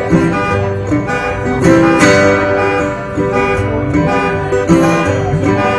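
Acoustic guitar strummed in an instrumental break of a country song, with no singing.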